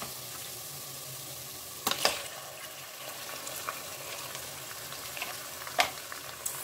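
Onions frying in hot mustard oil in a pressure cooker, sizzling steadily as raw mutton pieces are added by hand. A few sharp knocks break in, a pair about two seconds in and the loudest one near the end.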